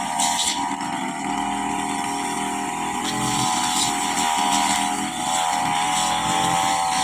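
Handheld petrol brush cutter running at high speed while cutting grass, a steady high-pitched engine note that wavers slightly in pitch.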